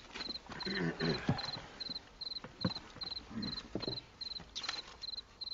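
Cricket chirping at an even pace, about two and a half high chirps a second, with faint low voices and small clicks underneath.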